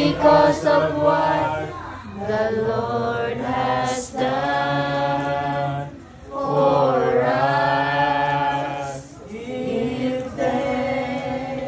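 A group of voices singing together in slow, held phrases of about two seconds each, with brief breaths between them.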